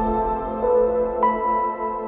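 Ambient background music: soft sustained tones over a low drone, with new notes coming in about half a second and a second in.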